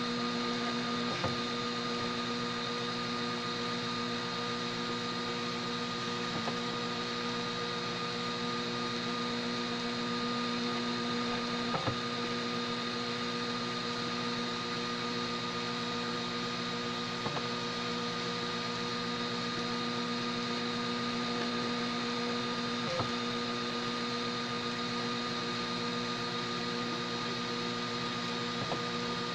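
Homemade 3D printer running through a print: a steady hum with several held tones, and a light click about every five to six seconds.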